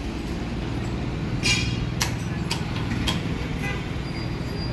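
A vehicle engine running with a steady low hum, with a few short, sharp clicks and chirps over it about a second and a half in, then every half second or so.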